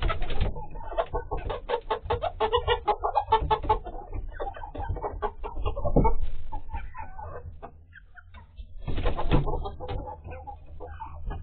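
Hens squabbling on the roost at night, a busy tangle of clucks and squawks as they jostle for their places. There is a loud burst about six seconds in and another about nine seconds in, with a brief lull between them.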